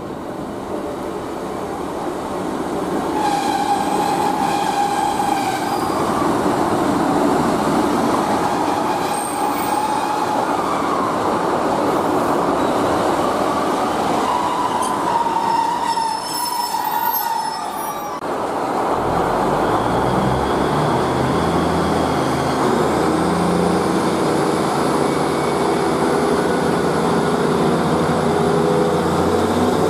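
A Class 150 Sprinter diesel multiple unit runs into the platform, its wheels and brakes squealing in high tones as it slows. About two-thirds of the way through, its underfloor diesel engines rev up and climb in pitch as it pulls away.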